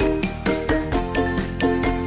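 Background music: an upbeat instrumental with quick plucked or struck notes, about four to five a second, over a steady bass.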